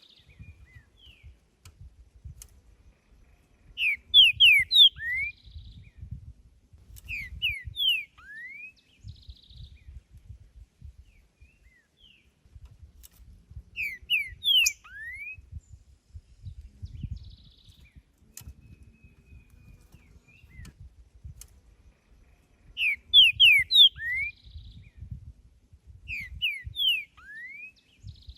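Green-winged saltator (trinca-ferro) singing: five short loud phrases of clear whistled notes, each phrase a quick run of a few notes and several ending on a rising note, with pauses of a few seconds between them. A faint low rumble runs underneath.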